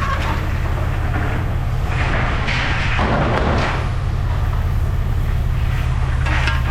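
Machinery running with a steady low drone, with a burst of noisy clatter about two to four seconds in and a few short knocks near the end.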